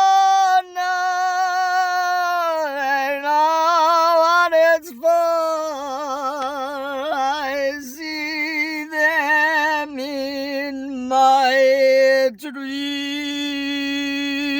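A single voice singing long, wordless held notes. The notes waver with wide vibrato through the middle, and after a brief break near the end the voice settles onto a steady lower note.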